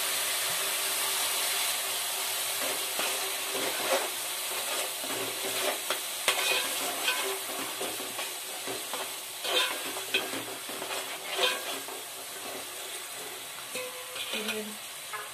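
Tomato, onion and spice masala frying in oil in a pan with a steady sizzle, stirred with a spoon that scrapes and clicks against the pan now and then. It is being fried until the raw smell of the tomato cooks off.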